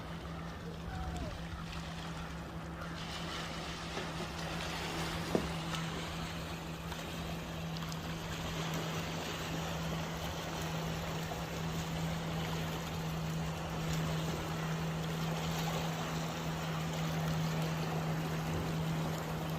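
Boating on open water: an even wash of water and wind noise under a steady low hum, with one brief sharper sound about five seconds in.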